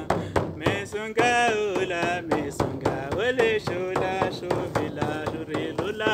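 Large hide frame drum (shamanic drum) struck with a beater in a steady beat, under a man's chanted singing.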